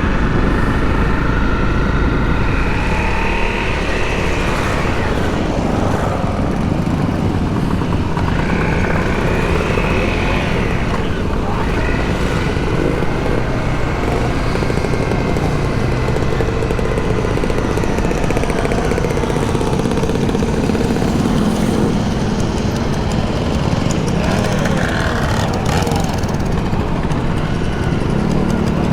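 Motorcycle engine running at speed on a track lap, its pitch rising and falling with the throttle, over a steady rush of wind noise on the microphone.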